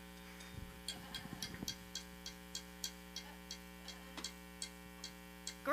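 Steady electrical hum from a stage's amplifiers and PA, with quiet, evenly spaced ticking at about three to four ticks a second.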